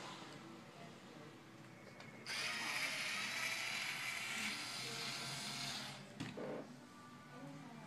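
Screwdriver working a small Phillips screw out of a laptop's display frame: a steady mechanical noise for nearly four seconds from about two seconds in, then a brief knock.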